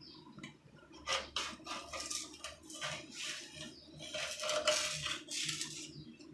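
A metal paint scraper scraping old silicone sealant off the edge of a granite countertop in quick repeated strokes, about two or three a second, starting about a second in.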